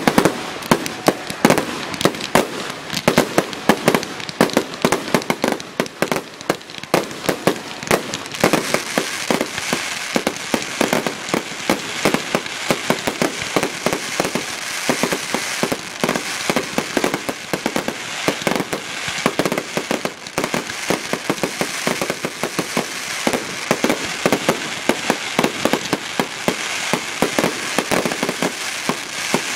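Fireworks display: a rapid, unbroken barrage of bangs and crackling bursts, with a dense crackle filling in from about a third of the way through.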